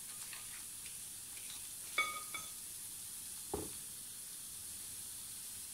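Hot, blackened caramelised sugar sizzling faintly in a nonstick saucepan. Light utensil clinks come about two seconds in, the first ringing briefly, with another knock a little later.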